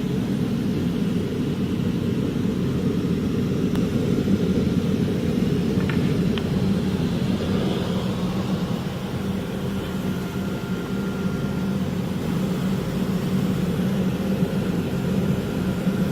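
Steady low running noise of CNC router machinery, with an even hum and no changes in level.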